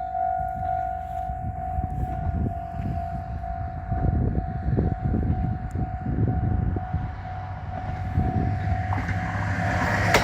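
Japanese level-crossing warning bell ringing a steady tone while a train rumbles across the crossing, its wheels knocking heavily from about four seconds in. A rising hiss joins near the end.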